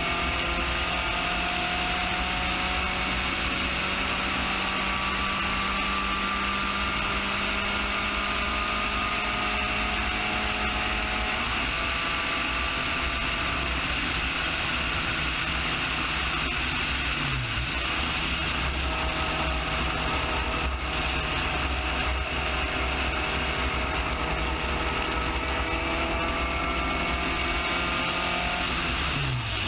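Spec Racer Ford GEN3's four-cylinder engine running hard at high revs, heard from the cockpit with wind rush over the car. The engine pitch climbs slowly, falls back about twelve seconds in, and dips briefly and recovers around seventeen seconds and again at the very end.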